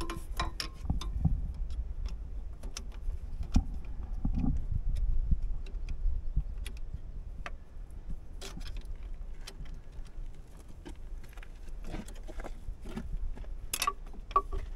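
Scattered metallic clicks, taps and scrapes of a hand tool tightening a hose clamp on a skid steer's small turbocharger, over a low steady rumble.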